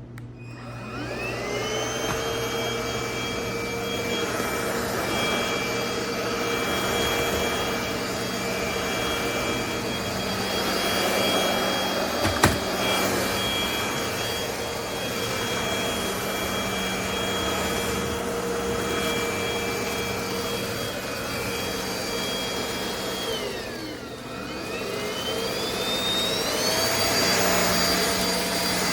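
Cordless stick vacuum motor spinning up about a second in and running with a steady high whine, with one sharp click about halfway through. Near the end its pitch dips briefly, then climbs to a higher, steady whine as the motor runs faster.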